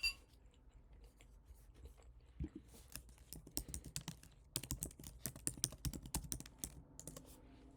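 Typing on a computer keyboard: a run of irregular key clicks, densest in the middle, after a single sharp click right at the start.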